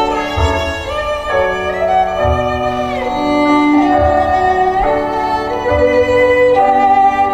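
Instrumental music: a sustained melody of held notes that move up and down, over a low pulse that comes about every two seconds.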